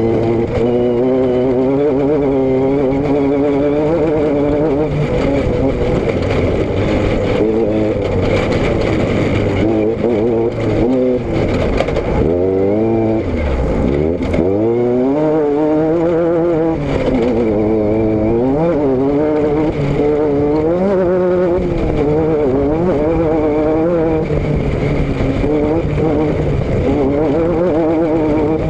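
Vehicle engine running continuously, its pitch wavering up and down, dropping low about twelve seconds in and climbing back a couple of seconds later.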